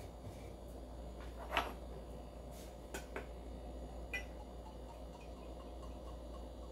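A few small clicks and knocks of glass and metal as a bottle of clear crème de menthe and a jigger are handled, the loudest about a second and a half in. Then a faint pour of the liqueur from the bottle into the jigger.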